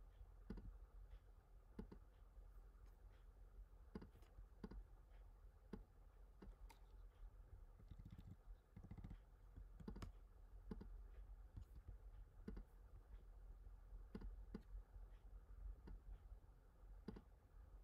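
Faint, irregular clicking of a computer mouse and keyboard, about one click a second, over a low steady room hum.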